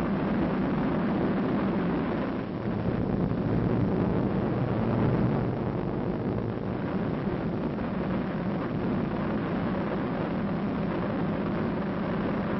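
Atomic explosion on an old film soundtrack: a steady, loud, low-pitched rumble that swells about four to five seconds in and then eases a little.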